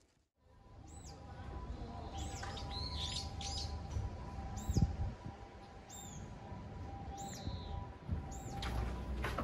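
A small bird calling outdoors with short, high, arched chirps, about one a second, over a steady low background rumble and a faint steady hum.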